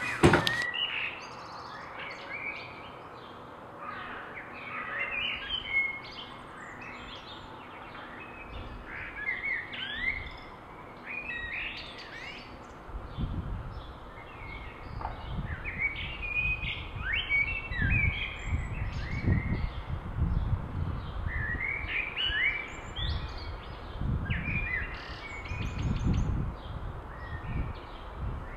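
Small birds chirping and calling, many short high chirps overlapping one another. From about halfway, bursts of low rumbling come and go beneath them.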